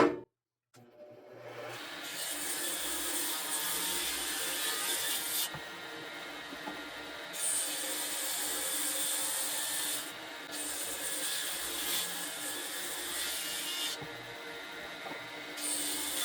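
Power saw cutting wood boards to width. The high cutting noise comes and goes over several passes, each lasting two to three seconds, with the saw running on in between.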